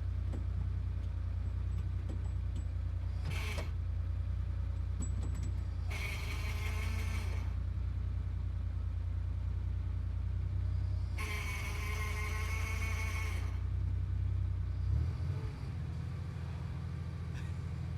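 Sports car engine droning steadily, heard from inside the cabin while driving. A short rush of noise comes about three seconds in and two longer ones at about six and eleven seconds, and the engine note changes about fifteen seconds in.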